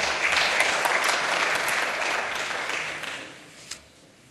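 Applause from the members seated in the chamber, a dense patter of many hands that fades away about three and a half seconds in.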